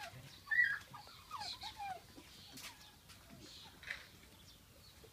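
Short squeaky animal calls, a handful in the first two seconds, each bending up or down in pitch; the loudest comes about half a second in, and a couple of sharp clicks follow later.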